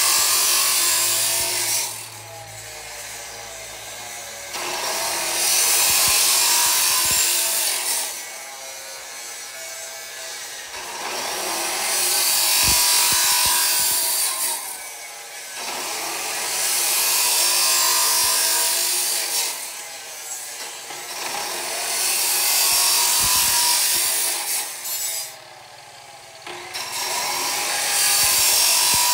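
Abrasive cut-off (chop) saw cutting notches into square steel tube: a harsh grinding rush each time the spinning disc bites the metal, about six cuts of two to four seconds each. Between cuts the motor's lighter whine carries on as the disc spins free.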